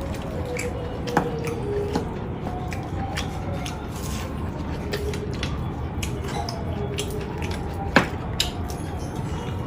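Wet chewing and squishing of someone eating noodles and chicken by hand, with scattered small clicks and a sharp tick about eight seconds in, over a steady low hum.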